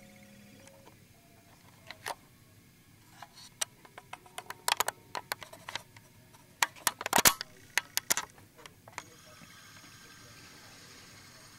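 Irregular sharp clicks and knocks, a few at first, then a dense cluster in the middle, stopping about three-quarters of the way through; after that only a faint steady hiss.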